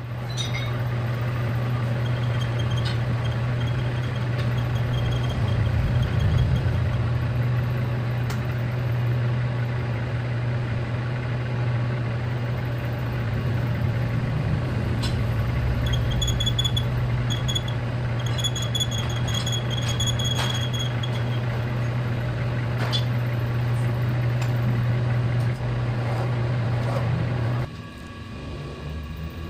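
Metal lathe running steadily with a low hum, turning a crankshaft while its thread is recut. A thin high squeal comes and goes, strongest in the middle stretch. About two seconds before the end the running sound drops quieter and lower.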